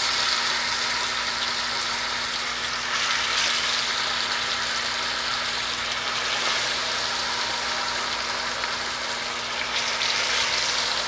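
Seasoned oxtail pieces sizzling in hot oil in a cast-iron skillet as more pieces are laid in, a steady hiss with a low hum underneath.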